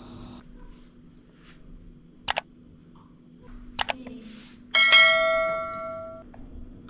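Sound effect of a subscribe-button animation: two quick double mouse clicks, then a bright bell ding that rings out and fades over about a second and a half.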